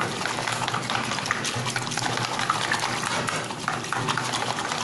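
Wire whisk beating a foamy liquid of milk, water, oil, egg and yeast in a plastic bowl to mix in the salt: rapid, even splashing with quick clicks of the wires against the bowl.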